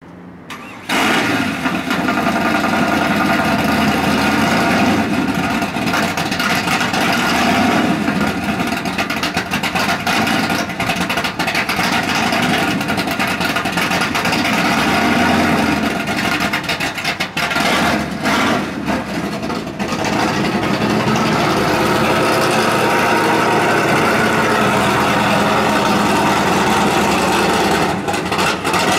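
1970 Chevelle SS's built 502 cubic-inch big-block V8 running near idle, loud and steady, as the car rolls slowly past. The sound comes in sharply about a second in.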